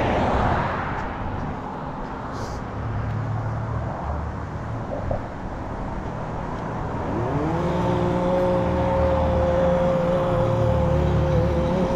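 Road traffic alongside: a car goes by at the start, then about seven seconds in a vehicle's engine whine rises in pitch and holds steady.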